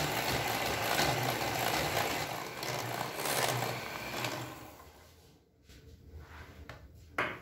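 Electric hand mixer running steadily, its wire beaters whipping eggs and sugar into a pale, thick foam. The motor fades out and stops about five seconds in, followed by a few faint clicks and a short knock near the end.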